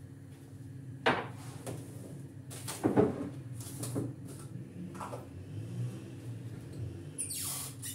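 Kitchen handling clatter: a few separate knocks and clunks, like cupboards and utensils being handled, over a steady low hum. A brief hiss comes near the end.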